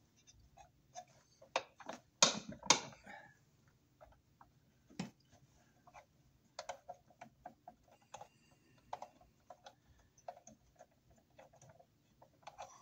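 Clicks and knocks of a twist-lock receptacle and its stiff wires being pushed and worked into an electrical box by hand. The loudest knocks come about two seconds in, with another about five seconds in, followed by a run of lighter clicks.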